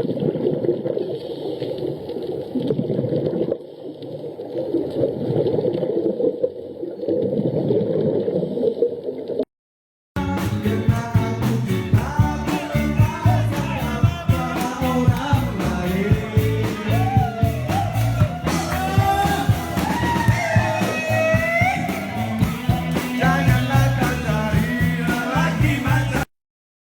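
Background music: a muffled stretch at first, then after a short break a song with a singing voice and a steady beat that stops abruptly near the end.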